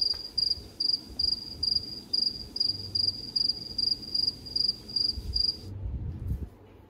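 Cricket chirping: a high, even chirp repeated about two and a half times a second, which cuts off abruptly near the end.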